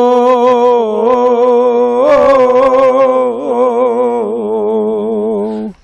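A man's solo, unaccompanied chanting of a Kashmiri marsiya (elegy), sung in long held notes with a wavering, ornamented pitch. The chant breaks off sharply near the end.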